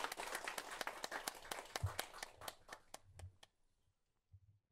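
Small audience applauding, the clapping thinning out and dying away about three and a half seconds in. A few soft low thumps sound under it.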